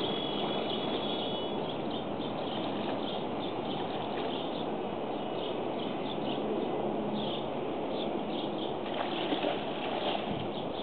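Outdoor ambience: a steady background rush with small birds chirping on and off over it, and a few thin high whistled notes in the first second or so.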